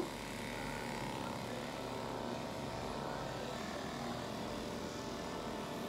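Electric pet grooming clippers running with a steady hum.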